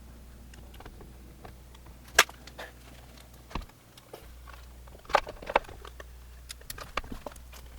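Scattered sharp clicks and knocks of metal tools and engine parts being handled, the loudest about two seconds in and two close together about five seconds in, over a low steady hum.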